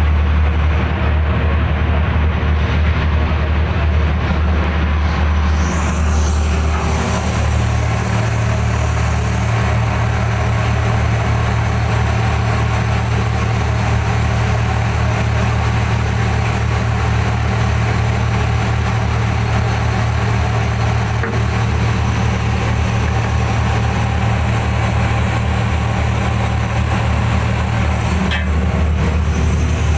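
Fishing boat's inboard engine running steadily, a loud low drone with a wash of noise over it. The higher noise grows about six seconds in and briefly thins near the end.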